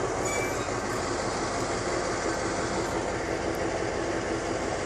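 Diesel engine of an MTU-engined Alstom locomotive running steadily at idle, as a standing train waits to depart.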